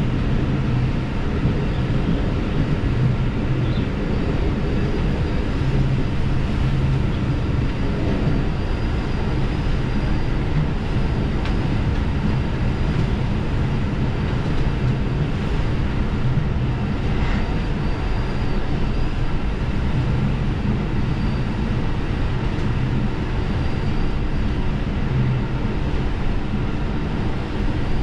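Diesel railcar running along the line: a steady low drone of engine and wheels on the rails, with a faint high whine coming and going.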